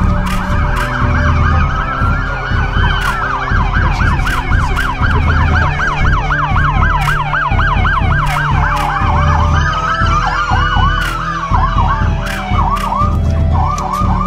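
Emergency vehicle sirens: a fast yelp warbling rapidly up and down, with a slower wail rising and falling twice over it, above a low rumble.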